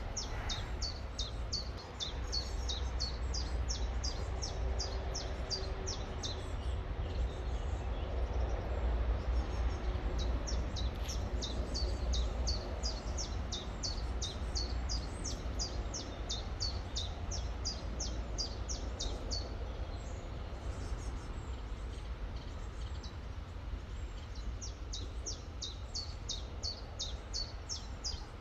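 A small bird repeats short, high chirps very fast, about four a second, in long runs with two pauses, over the steady rush of a river and a low rumble.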